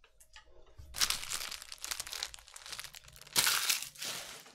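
Foil trading-card pack wrapper crinkling and crumpling in the hands. It starts about a second in, and the loudest burst of crackling comes about three and a half seconds in.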